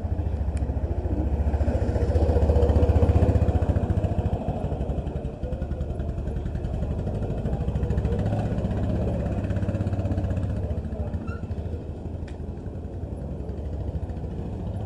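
Small motor scooter engine running close by, loudest about three seconds in, then carrying on at a steadier level.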